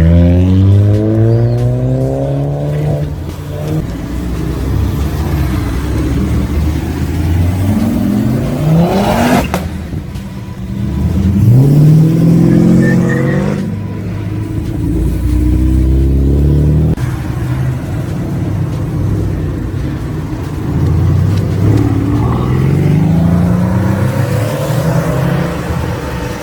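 Modified car engines revving and accelerating hard, the pitch climbing again and again as they pull away and change gear.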